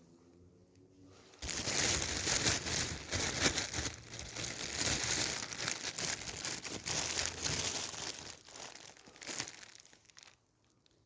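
Crinkling packaging being handled and crumpled, with many small sharp crackles. It starts suddenly about a second in and fades out near the end.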